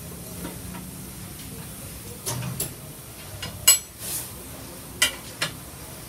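Sharp knocks and clanks of tools and metal during tyre-changing work, about six in all, the loudest and most ringing one near the middle. A short hiss follows it, over a steady background hiss.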